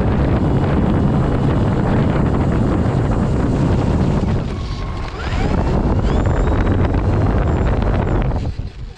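Heavy wind noise buffeting the microphone of a camera riding on the tail of an RC plane in flight, over the rush of its electric motor and propeller. It dips briefly about halfway, with a faint rising whine as it builds back, and falls away sharply near the end.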